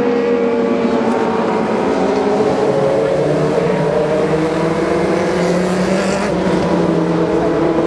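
A pack of dwarf race cars running together, several engine notes overlapping at once and slowly shifting in pitch.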